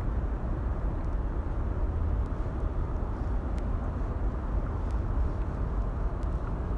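Steady low rumbling background noise with no speech, with a few faint ticks.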